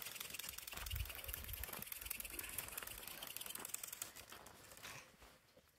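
Hand-drill fire-making: a wooden spindle spun back and forth between the palms against a wooden hearth board, giving a fast, continuous scratchy friction rasp that dies away near the end.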